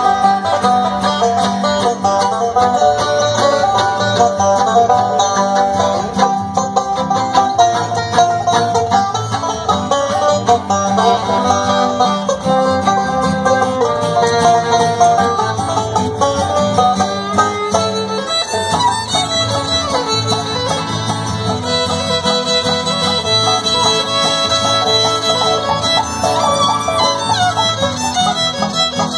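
A live bluegrass band playing an instrumental tune without singing: fiddle and five-string banjo over acoustic guitar and upright bass.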